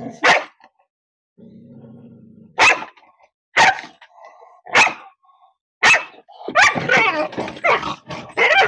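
Aggressive Indian street dog growling low and barking sharply at a shoe pushed into its cage: about five single barks with a growl between them, then a quick run of snarling barks near the end as it grabs the shoe.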